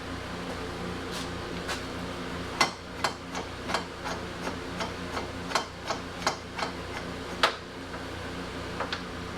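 About a dozen sharp, light clicks and taps, irregularly spaced, over a steady electrical hum.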